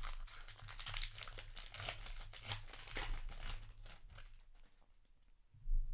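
Foil wrapper of a Magic: The Gathering play booster pack being torn open and crinkling as the cards are slid out. The crinkling fades out about four seconds in, and a dull low bump follows near the end.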